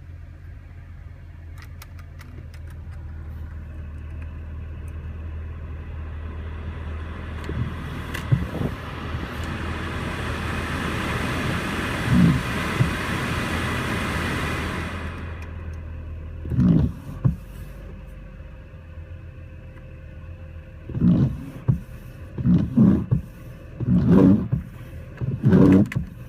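BMW engine idling roughly with the air conditioning switched on: a steady low hum under a rush of air from the AC blower that builds over about ten seconds and cuts off suddenly about fifteen seconds in. After that the hum weakens and a series of short, loud low thumps follows.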